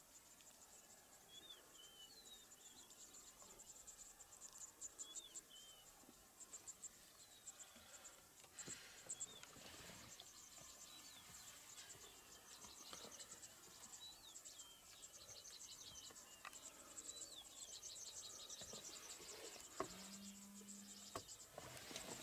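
Faint grassland ambience: insects chirring in a fast, even pulse high in pitch, with scattered short bird chirps. A brief low steady tone sounds near the end.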